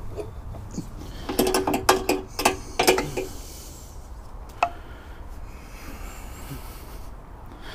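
Metal clicks and rattles from strap hardware handled against the wooden boat-loader ramp: a quick run of them lasting about two seconds, then a single sharp click.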